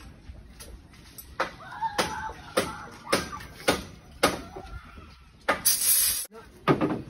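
A run of sharp knocks and clanks of building work on timber formwork and steel rebar, coming roughly every half second, with a short hissing burst near the end.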